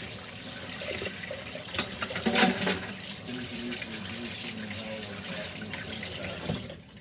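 Kitchen tap running into a sink, with a few sharp clatters of dishes about two seconds in. The water shuts off near the end.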